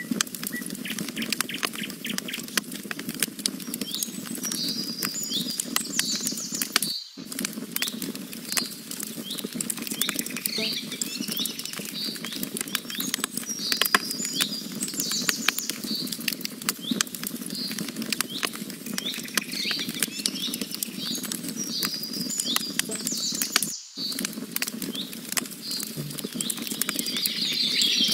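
Campfire of burning logs crackling and popping steadily over a low rush of flame, with songbirds chirping in short repeated phrases above it. The sound cuts out briefly twice, about 7 and 24 seconds in.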